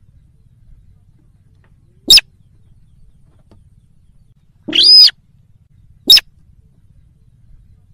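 Slaty-breasted rail (sintar) calling: a short, sharp call about two seconds in, a longer call around the middle, and another short call near six seconds, with quiet between. It is a recorded lure call for drawing rails in.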